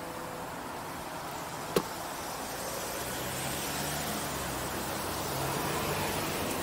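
Steady wind and tyre noise from riding a tandem mountain bike on a road, with a single sharp click about two seconds in and a faint low hum joining about halfway through.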